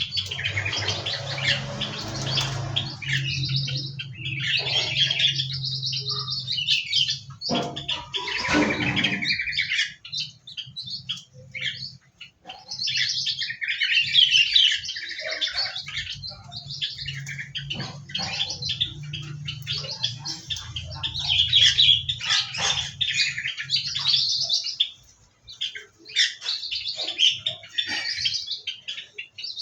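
Many small cage birds in an aviary chirping and twittering constantly, their calls overlapping, with a short lull about three-quarters of the way through.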